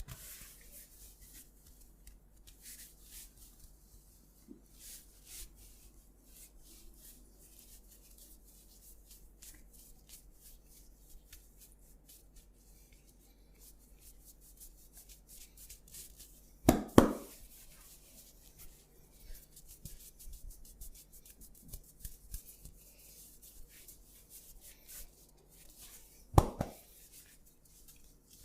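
Hands rubbing and scratching over hair and skin in a head massage, a run of many faint short rustles. It is broken by two loud thuds, about two-thirds of the way in and again near the end.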